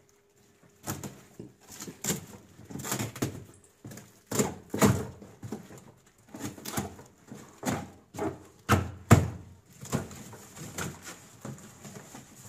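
Cardboard box and packaging being torn and pulled apart by hand: an irregular string of short rips, crackles and knocks, the loudest about nine seconds in.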